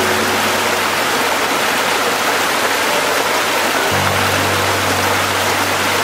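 Water of a rocky stream rushing and splashing over stones, a steady, dense hiss, mixed with soft background music whose low held notes come back in about four seconds in.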